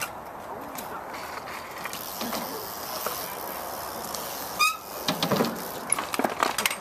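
BMX bike riding on concrete ramps: tyres rolling with the freewheel hub ticking, a short squeak about two-thirds in, then a run of sharp knocks and clatter near the end as the bike meets the ramp edge and deck.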